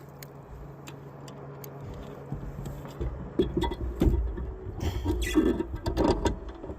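Knocks, thumps and rattling of handling in a fishing kayak, becoming busy and loud from about three seconds in. A steady low hum stops about two seconds in.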